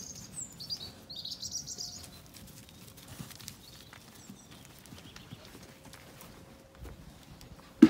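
Hooves of Zwartbles rams shuffling and stepping on soft ground as they push through an iron gate, with birds chirping in the first two seconds. One sharp knock just before the end.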